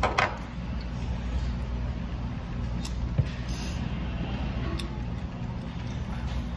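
Steady low machine hum of room ventilation. A short slurp near the start as meat is sucked off a pork bone, and a few faint clicks of tableware.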